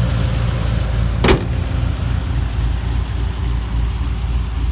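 Holden Commodore SSV's 6.0-litre V8, fitted with a performance camshaft and extractors, idling steadily under the open bonnet. A single sharp knock sounds about a second in.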